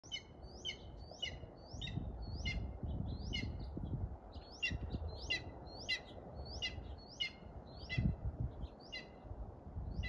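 A hawk calling in a steady series of short, sharp calls, about two a second, over a low rumble with a few bumps on the microphone.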